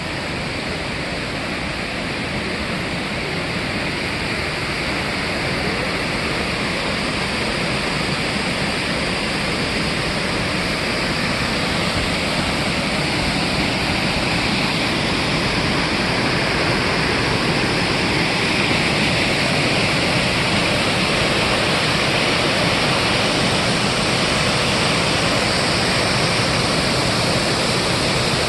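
Steady rush of a waterfall, getting gradually louder.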